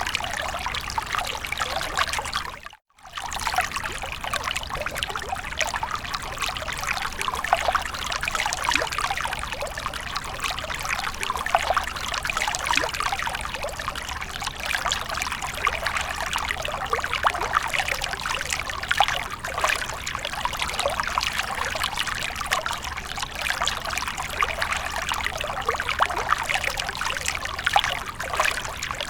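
Water fountain splashing and trickling steadily, a dense patter of falling water. The sound cuts out completely for a moment about three seconds in, then resumes.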